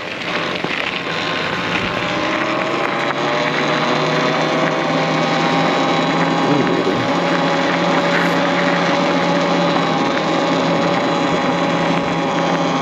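Talaria Sting R MX4 electric dirt bike riding on a trail: the motor's whine rises in pitch over the first few seconds as it picks up speed, then holds steady, over a haze of tyre and wind noise.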